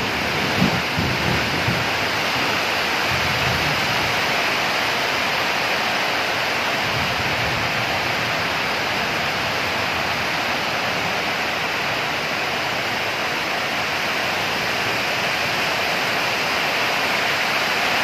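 Heavy storm rain pouring down in a steady hiss, with a few short low thumps in the first four seconds.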